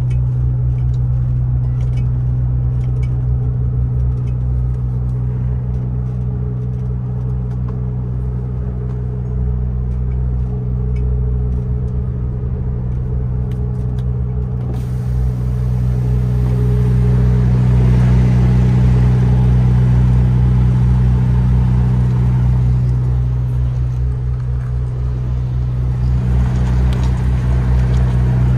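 MAN TGX 18.510 truck's inline-six diesel engine running at low revs while the truck is manoeuvred slowly in reverse toward a loading ramp; a steady low hum that swells a little in the middle and again near the end.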